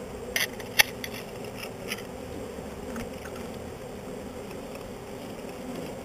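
Honeybee swarm humming steadily at close range. A few sharp clicks or knocks in the first two seconds, the loudest about a second in.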